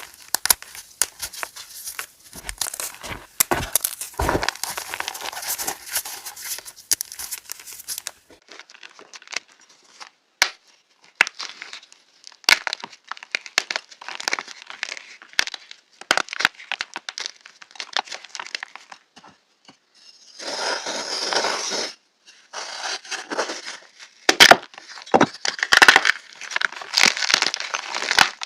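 Fresh gym chalk being crushed and crumbled, a dense, irregular run of crisp crackles and crunches with short pauses. About eight seconds in, the sound turns less bright and crunchier.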